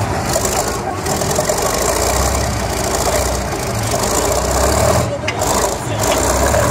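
Soviet T-34/85 tank reversing: its V-2 V12 diesel engine running under load, with the tracks and running gear rasping and clanking.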